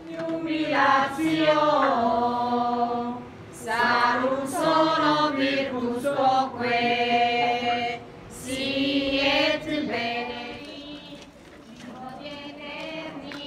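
A crowd of people singing a slow religious hymn together in long held phrases, breaking briefly about 3.5 and 8 seconds in, and growing quieter near the end.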